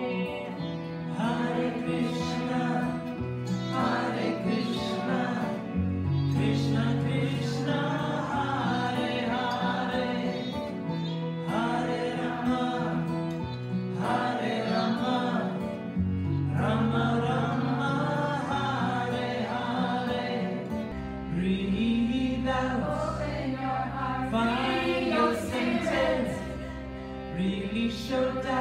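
Live kirtan: women singing a devotional chant together, accompanied by harmonium, acoustic guitar, tabla and bowed cello. A deep sustained bass note comes in about two-thirds of the way through.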